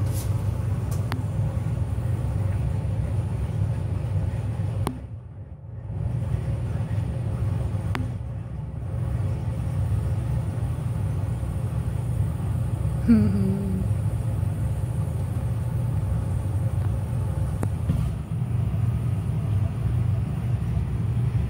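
Steady low rumble of a home's air conditioning running. It drops away briefly about five seconds in, and a single short falling vocal sound comes about thirteen seconds in.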